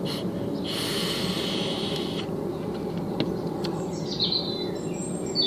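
Vape draw on an e-cigarette: a steady hiss of air pulled through the firing atomizer for about a second and a half, followed by the exhale. A few short bird chirps come near the end, over a steady low background noise.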